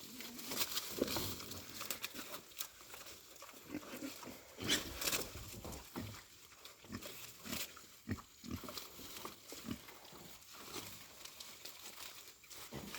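Pigs eating freshly pulled corn plants: irregular crunching and chewing of the corn with occasional short grunts.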